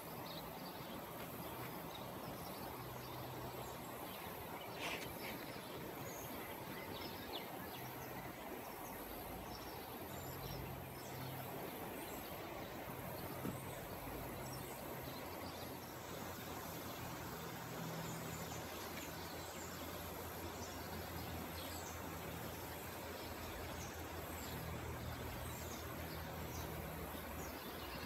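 Outdoor ambience: a steady noise bed with many small bird chirps scattered through it and a low hum that comes and goes.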